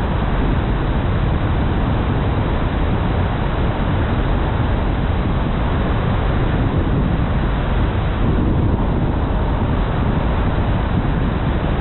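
Steady rush of tyre and wind noise from a car driving along a road, heaviest in the low rumble, with no distinct engine tone and no sudden sounds.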